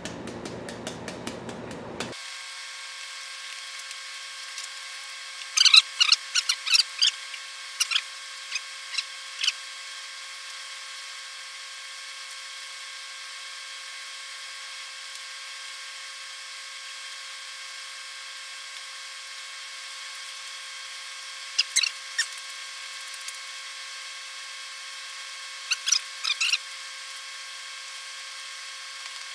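A steady hum runs throughout, with three short clusters of sharp knocks or taps: one several seconds in, and two more shorter ones later on.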